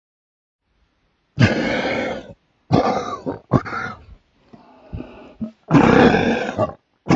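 A man coughing in his sleep: a run of loud, drawn-out coughs, each up to about a second long, beginning about a second in, with a fainter one in the middle of the run.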